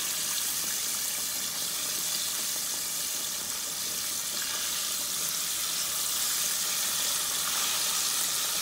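Dry-battered fish fillets deep-frying in a pot of hot oil: a steady sizzling hiss that grows a little louder near the end.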